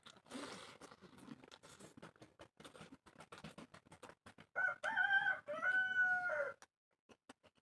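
A rooster crows once, a loud call about two seconds long in two parts, after a few seconds of soft clicking sounds.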